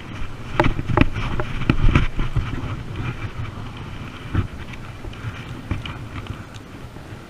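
Wind rumbling on the microphone, with a handful of sharp knocks and clicks, most of them in the first two seconds and one more near the middle.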